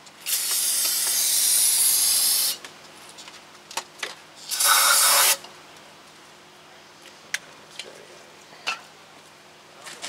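Aerosol brake cleaner sprayed onto the starter mounting surface: one long hiss of about two seconds, then a shorter burst about two seconds later, with a few light clicks afterwards.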